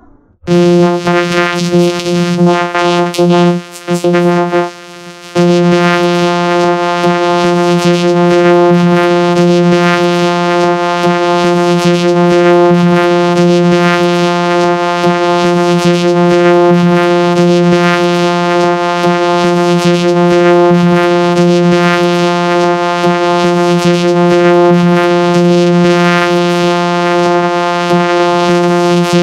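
Loud, steady electronic drone: one held synthesizer-like tone with many overtones that never changes pitch, cutting out briefly twice about four to five seconds in.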